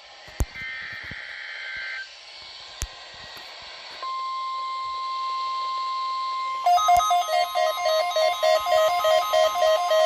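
NOAA Weather Radio weekly test: a short burst of SAME header data tones, then the steady 1050 Hz warning alarm tone from about four seconds in. Near seven seconds a weather radio receiver's own alert alarm joins it, a loud, rapidly repeating electronic beep.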